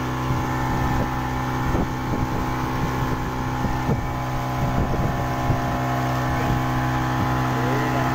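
A 40 hp outboard motor running steadily, driving the boat along at an even pitch.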